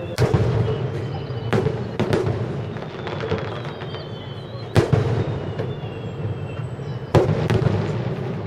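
Aerial firework shells bursting: a string of sharp booms a second or two apart, the loudest about five and seven seconds in.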